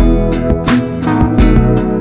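Background music: a strummed acoustic guitar over a bass line, with a steady beat.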